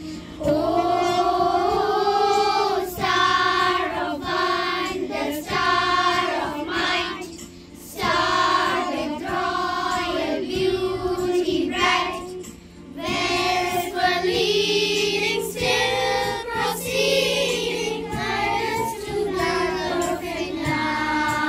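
A children's choir singing a song in unison over an accompaniment with steady, held low notes, with short breaks between sung phrases.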